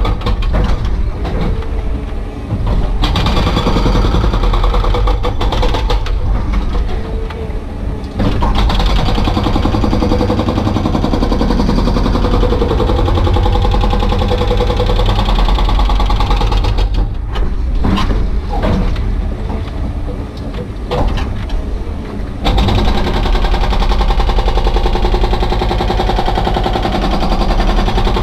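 Excavator-mounted hydraulic breaker hammering rock in rapid repeated blows over the running diesel engine, heard from inside the cab. The hammering stops briefly near 3 s and 8 s, and for several seconds from about 17 s, when only the engine and a few clanks are heard.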